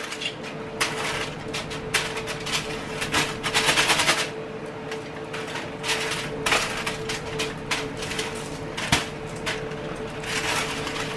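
Flour-coated fish frying in hot oil in a skillet: a steady sizzle full of quick crackling pops, with a faint steady hum underneath.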